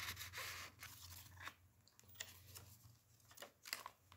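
Faint paper handling: a stamped card tag and the pages of a handmade paper journal rustling and scuffing in a few short strokes as a page is turned.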